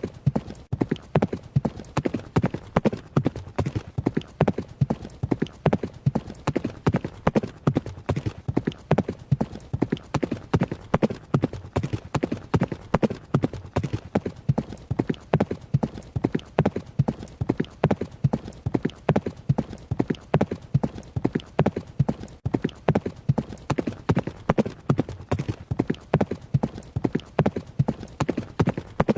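Hooves of a running horse striking the ground in a fast, even rhythm that keeps on without a break.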